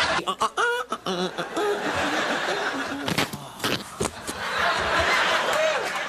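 Studio audience laughing and chuckling.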